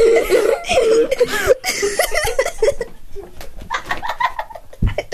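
Children giggling and stifling laughter in high, breathy squeals for the first couple of seconds, then softer rustling and clicks, with a dull thump near the end.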